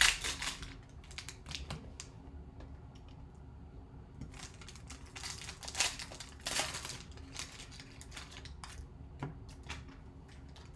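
Plastic wrapper crinkling and rustling as it is handled, in short bursts: one right at the start, a few more around a second in, and a longer stretch about four to seven seconds in, with a few faint clicks near the end.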